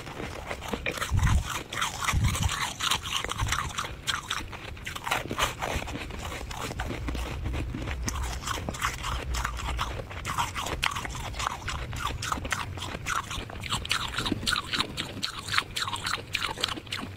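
Soft freezer frost crunching in a dense, continuous run of crisp crackles, with two heavier crunches about one and two seconds in.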